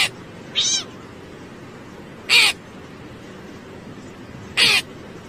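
Crow cawing: four short, harsh caws, the first two close together, then one about every two seconds, over a steady hiss.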